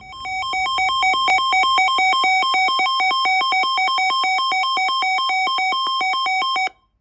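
Electronic emergency-alert attention tone: a loud, buzzy synthetic tone warbling rapidly between two pitches, then cutting off suddenly near the end. It is the alarm that precedes a tornado warning.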